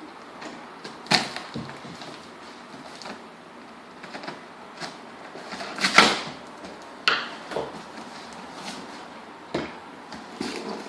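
A box and its packaging being handled and opened: a series of sharp knocks and short rustles, the loudest and longest about six seconds in.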